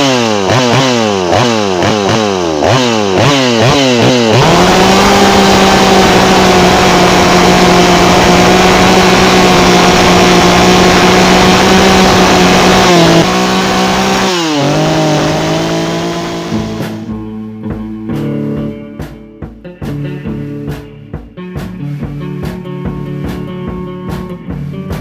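A chainsaw revs up and down about twice a second, then runs at a steady high pitch at full throttle for about nine seconds while carving wood. It drops in pitch and falters, and about seventeen seconds in, guitar-led rock music takes over.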